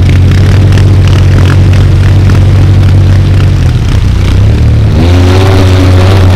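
ATV engine held at high revs under load while pulling a stuck ATV out of mud on a tow strap. It eases off about four seconds in and revs up again near the end, with mud and water spraying from spinning wheels.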